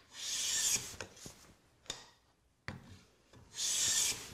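Jointer plane taking two long shaving strokes across a thin wooden side panel, a hissing swish each time, with a few light knocks between strokes. The panel is being planed down because it came out slightly thicker than half an inch.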